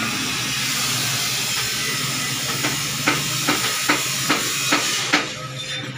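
A steady hiss, like air or spray escaping under pressure, which stops shortly before the end. Near the middle a run of about eight sharp clicks or taps begins and goes on until the hiss stops.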